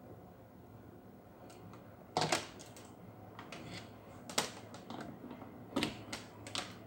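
Irregular sharp clicks and knocks of plastic battery chargers, plugs and power cords being handled on a hard table, the loudest about two seconds in, with further knocks near four and a half and six seconds in, over a faint steady hum.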